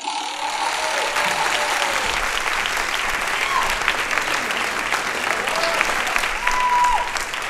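Live audience applauding steadily, with a few short cheers heard over the clapping.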